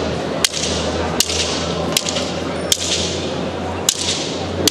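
Wooden matrag fighting sticks clacking together in a sparring exchange: six sharp cracks, roughly one every three-quarters of a second, with a longer gap past the middle. A steady crowd murmur runs underneath.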